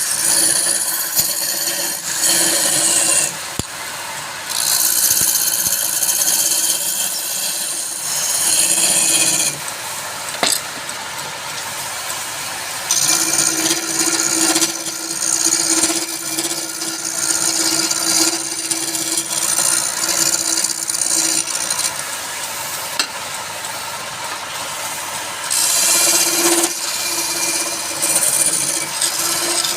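Wood lathe running with a turning tool held against the spinning wood, giving long stretches of loud scraping and cutting over a steady motor hum; the cutting eases off a few times for a second or more.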